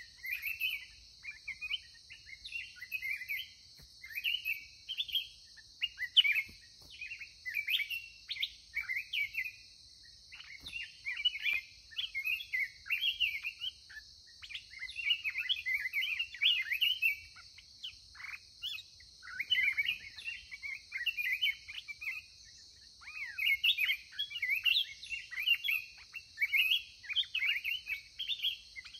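Black-crested bulbuls singing: run after run of quick chirping phrases with short gaps between them, over a steady high hiss.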